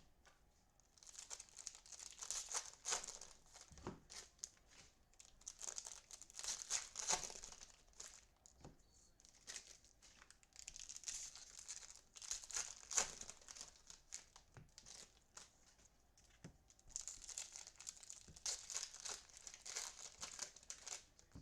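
Foil trading-card pack wrappers being torn open and crinkled by hand. The rustling comes in three long bouts with quieter spells between.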